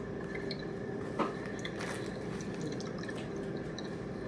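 Quiet eating sounds: soft wet mouth clicks and smacks as cookies are bitten and chewed, with one louder click about a second in, over a steady low hum.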